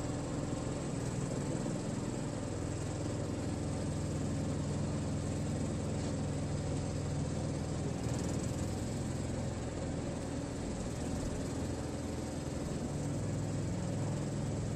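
Riding lawn tractor's engine idling steadily, left running unattended, with a thin steady high whine above the low hum.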